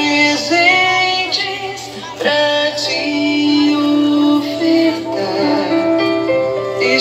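Music with a woman singing a slow devotional hymn, holding long notes.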